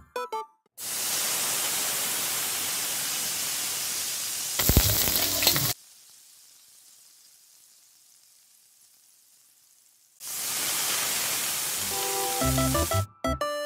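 Aromatics (ginger strips, then chopped garlic and onion) sizzling in hot oil in a steel wok as they are sautéed, with a louder clatter of stirring about five seconds in. The sizzle drops to a faint hiss for about four seconds, then comes back strong about ten seconds in, as more ingredients go into the oil.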